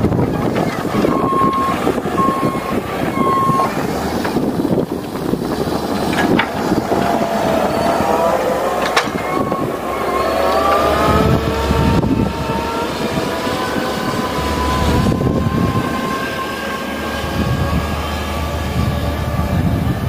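Engine of a Wacker Neuson compact wheel loader running as it works along the snow with its front plow blade; its pitch rises as it revs up about eight to twelve seconds in. A beeper sounds three short times near the start.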